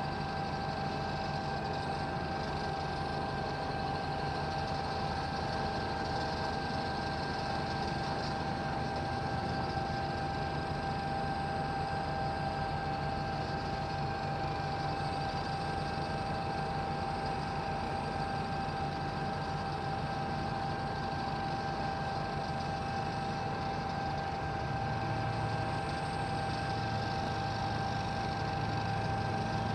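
Construction machinery running steadily: a low engine rumble with a constant high-pitched whine over it. The low rumble grows a little louder near the end.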